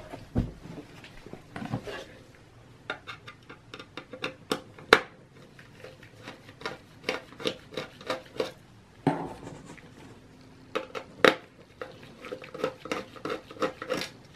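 Small Torx T6 screwdriver working the screws of a Mac mini's aluminium inner plate: a long run of light metallic clicks and scrapes as the bit seats and turns in the screw heads. A few sharper taps stand out, the loudest about five seconds in and again about eleven seconds in.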